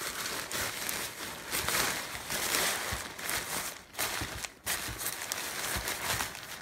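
Fabric of a deflated Gemmy airblown inflatable rustling and crinkling as hands rummage through it, in irregular swishes with a couple of short pauses.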